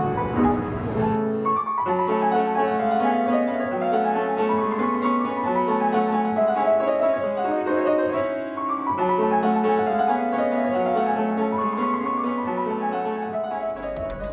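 Solo piano music, runs of notes rising and falling over held chords.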